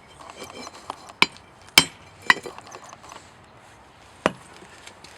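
Hammer blows on a hot steel railroad clip to straighten it: four sharp metallic strikes at uneven spacing, three close together in the first half and one more near the end.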